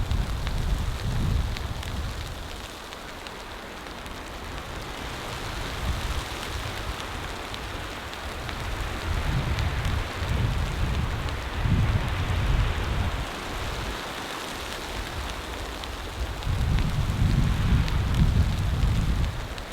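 Blizzard wind: a steady hiss with low rumbling gusts that swell and fade, loudest at the start and again near the end.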